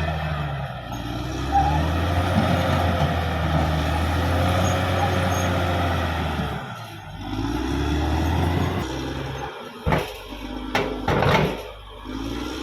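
Caterpillar D6R XL bulldozer's diesel engine running steadily under load, dipping briefly about seven seconds in and then climbing back up in pitch. Near the end come several sharp knocks and clanks.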